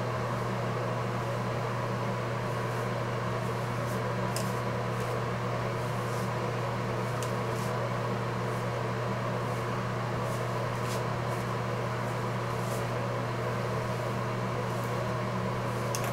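Steady low mechanical hum, unchanging throughout, with a few faint, brief strokes of a hairbrush through wet hair.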